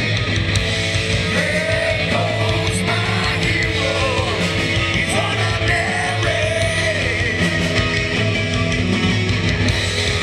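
Live rock band playing a song, with a singer's voice through the middle.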